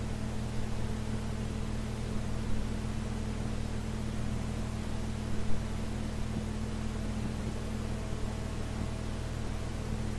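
Steady low mains hum and hiss from an old recording, in a pause with no recitation, with one brief pop about halfway through.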